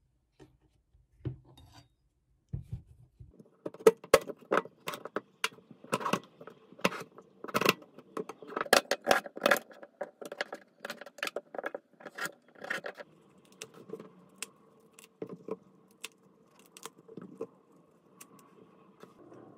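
Kitchen knife slicing ginger on a plastic cutting board: a run of sharp chops, about two to three a second, from about four seconds in until about thirteen, then only a few scattered, softer knocks.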